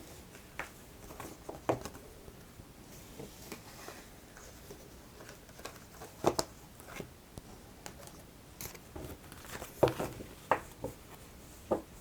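Tarot cards being handled and laid down on a table: scattered light taps and card slaps, with louder ones about two seconds in, around six seconds and near ten seconds.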